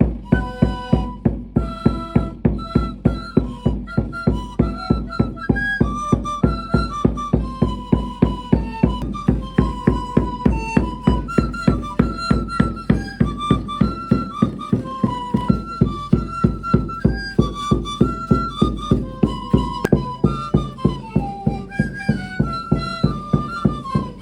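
Background music: a flute-like lead melody over a steady drum beat of about three beats a second.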